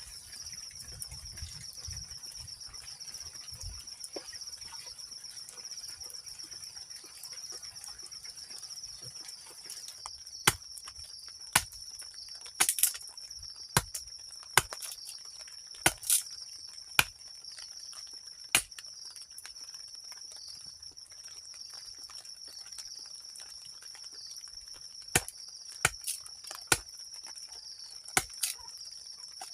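Steady high-pitched insect chorus, a continuous shrill trill. From about a third of the way in, a dozen or so sharp clicks or taps come at irregular intervals, louder than the chorus.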